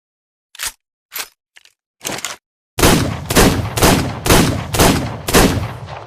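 Revolver sound effect: a few short clicks, then six shots fired in quick succession about two a second, each with a ringing tail that dies away after the last.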